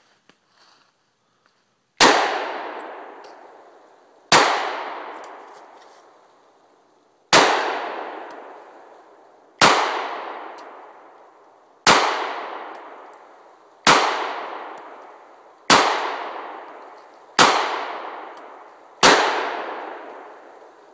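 Nine slow, deliberate shots from a Glock 30SF .45 ACP pistol, about two seconds apart, each followed by a long fading echo.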